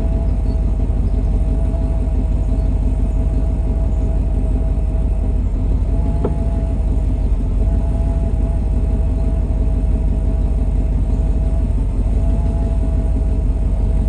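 Truck engine running steadily, with a fast low pulsing and a steady whine over it. A single sharp tick comes about six seconds in.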